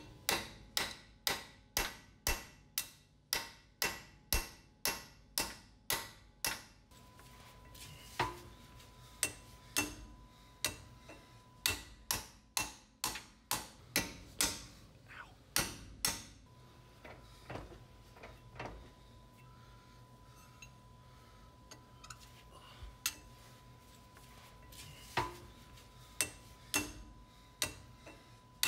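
Hammer striking a small steel center punch against the rear pinion flange of a Jeep Wrangler, sharp metal-on-metal taps, to break the driveshaft flange loose from the differential's pinion flange where corrosion can stick them together. The taps come in quick runs of about two or three a second, with pauses and single strikes between runs.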